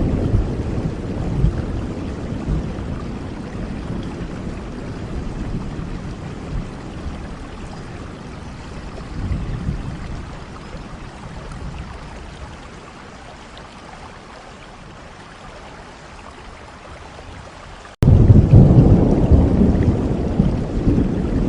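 Steady rain with rolling thunder. A rumble dies away slowly, a smaller one swells about halfway through, and near the end a loud new rumble starts abruptly.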